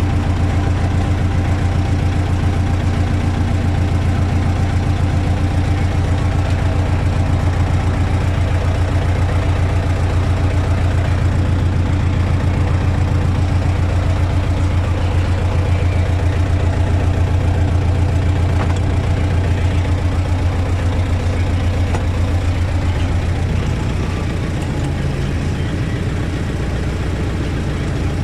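T-40 tractor's air-cooled diesel engine running steadily, with a fast, even firing beat. It eases off slightly a few seconds before the end.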